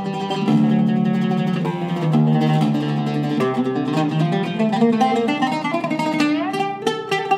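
Zaryab oud with a cedar soundboard and Indian rosewood back, played solo: a melody of separate plucked notes, with a rising slide about six seconds in.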